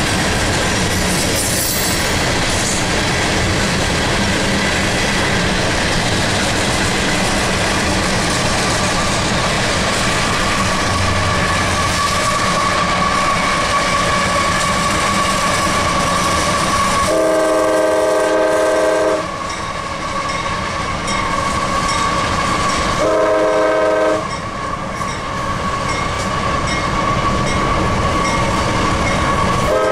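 CSX freight train rolling by with steady wheel-on-rail noise. The diesel locomotive's air horn blows a long blast about two-thirds of the way in, a shorter blast a few seconds later, and starts again right at the end.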